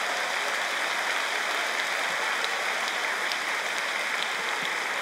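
Large theatre audience applauding and laughing in a steady, unbroken wash of clapping.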